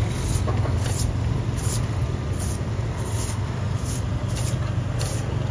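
A steady low mechanical hum with a soft hiss pulsing evenly about one and a half times a second.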